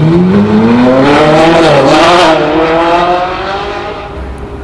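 Ferrari 458 Italia's V8, fitted with what its filmer takes for a non-stock exhaust, accelerating hard with the pitch climbing steeply. It dips briefly at an upshift just under two seconds in, climbs again, then fades as the car pulls away.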